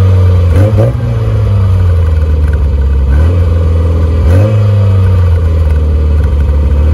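Classic Mini Cooper's A-series four-cylinder engine blipped several times through a freshly fitted larger-bore RC40 sports exhaust with the catalytic converter deleted. Each time the pitch jumps up and sinks back toward idle.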